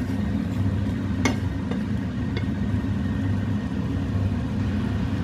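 Pan of chicken curry cooking on the hob, with a steady low rumble and three light taps of a wooden spatula against the pan between about one and two and a half seconds in.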